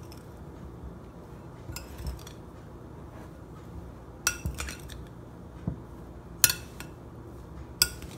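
Metal spoon stirring a mash of boiled potato and semolina in a glass mixing bowl: a soft, steady scraping, with several sharp clinks of the spoon against the glass every second or two, the loudest in the second half.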